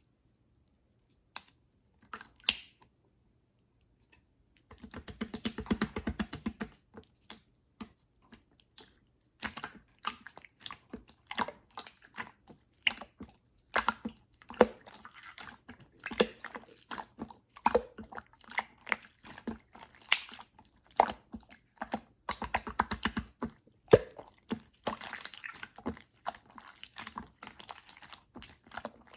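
Clear slime being pressed, squished and folded by hand, making irregular wet clicks and small pops, with a denser crackling stretch about five seconds in.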